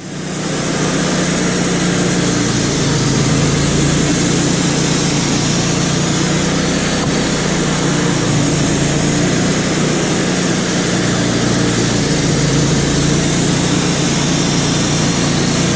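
Wood-Mizer LT35 band sawmill running steadily, its engine and band blade sawing through a fresh white pine log to cut an oval cookie slice.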